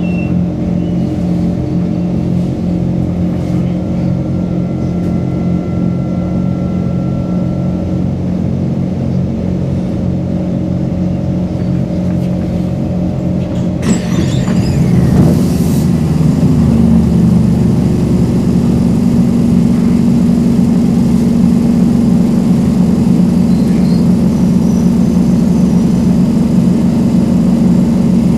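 Singapore MRT electric train heard from inside the carriage by the doors, running with a steady hum as it comes into a station and stops. There is a brief hiss about halfway, then a steadier, lower hum as it stands at the platform.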